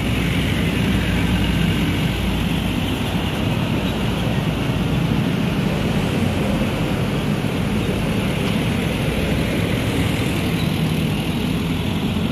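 Road traffic passing close by: a dump truck, cars and motorbikes driving over the level crossing, giving a steady mix of engine noise and road rumble.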